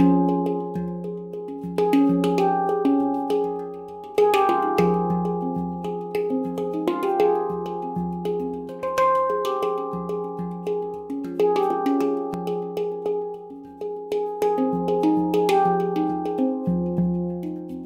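Handpan (Baopan, F Equinox tuning) played by hand: a flowing run of struck notes, each ringing on with bright overtones, over a repeated low ringing note.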